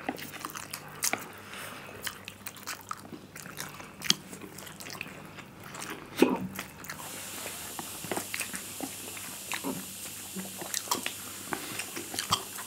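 Close-up sounds of two people eating spicy instant noodles with chopsticks: chewing and slurping, with many irregular clicks and smacks of the mouth.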